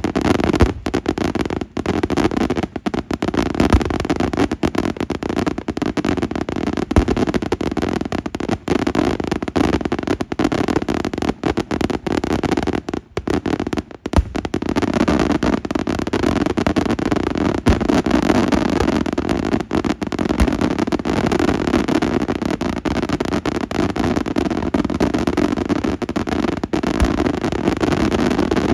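Daytime fireworks going off in a dense, continuous barrage of rapid bangs and crackling, with a brief lull about halfway through.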